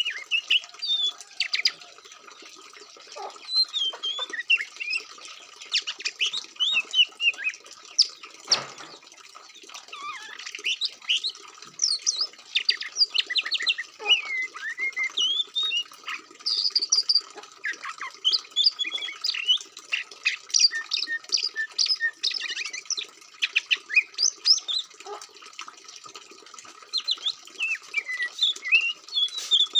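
Recorded songbird song played as masteran training audio for Oriental magpie-robins: rapid, varied chirps and whistled notes in bursts with short pauses, over a faint steady hum.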